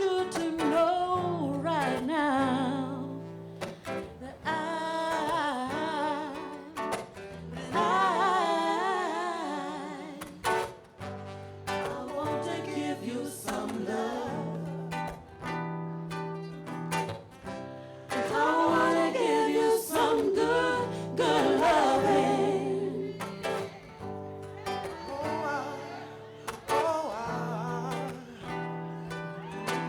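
Live vocal music: singers hold drawn-out, gliding notes over steady acoustic guitar accompaniment.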